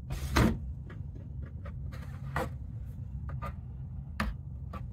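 Scattered light clicks and knocks of a plastic in-channel window deflector being handled and pressed into the door's window channel, the loudest about half a second in, over a low steady hum.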